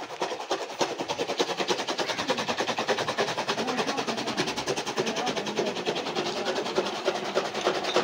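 Fodder chaff cutter running and chopping green fodder: a fast, even mechanical clatter of about ten strokes a second.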